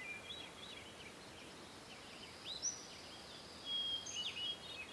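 Faint bird chirps and short whistled calls over quiet background noise, with a sharp rising call about two and a half seconds in and a cluster of calls near the end.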